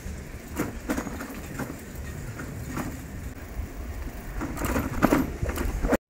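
Wind buffeting the microphone as a steady low rumble, with irregular crackles and knocks over it; the sound cuts out abruptly near the end.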